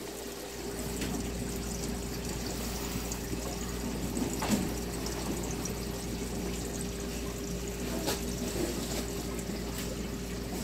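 Aquarium water bubbling and trickling from the tank's aeration pipe, over a steady pump hum, with a few faint clicks.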